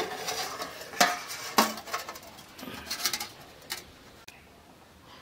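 Steel cookware clinking and clattering: a steel cover plate and spatula knock against a steel kadai as the cover is handled and lifted off. There are several sharp clinks, the loudest in the first two seconds, and the sound dies away after about four seconds.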